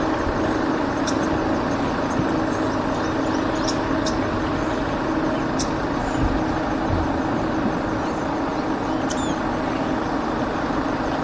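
Car engine idling steadily with an even hum. A few short, high chirps sound over it every second or two.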